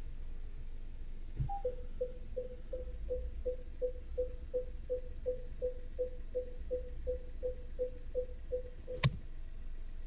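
Peugeot 3008's rear parking-sensor warning sounding as reverse is selected. A click and a single higher chime are followed by a steady run of about twenty short beeps of one pitch, near three a second. A sharp click stops them when reverse is taken out.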